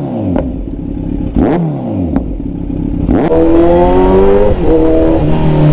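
Kawasaki Z900 inline-four with a Mivv full-system carbon exhaust, revved in two sharp blips that drop away quickly. From about three seconds in it pulls hard, its pitch rising through the revs, with quick gear changes near the end.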